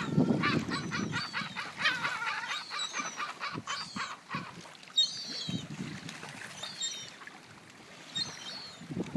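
Gulls calling: a fast run of short, harsh calls, about four a second, for the first four seconds or so, then only scattered single calls.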